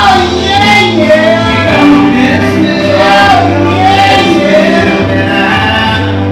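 A song playing loudly: a sung melody of held, wavering notes over steady bass notes.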